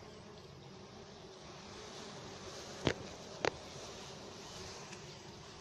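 Wild honey bees buzzing steadily in a dense cluster on their comb, a low continuous hum. Two sharp clicks about half a second apart, around three seconds in.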